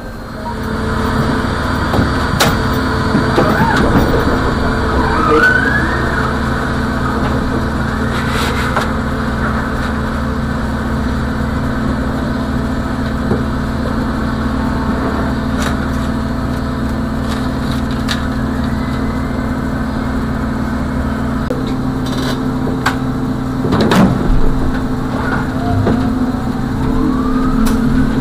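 Trolleybus running slowly: a steady electrical hum with several held tones, a few rising whines, and occasional short knocks and rattles.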